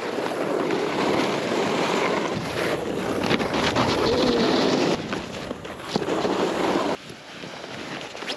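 Wind buffeting an action camera's microphone, with the hiss and scrape of skis and a snowboard sliding over snow. The noise is loudest for the first five seconds and drops off abruptly at about five and again at about seven seconds.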